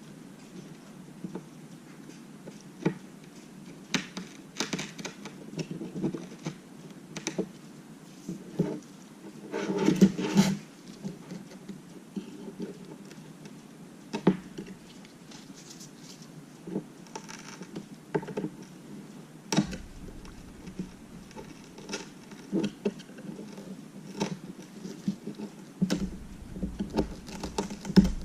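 Small repair tool picking and scraping broken glass fragments out from under the edge of an iPad Mini's frame: irregular light clicks and taps, with a louder spell of scraping about ten seconds in.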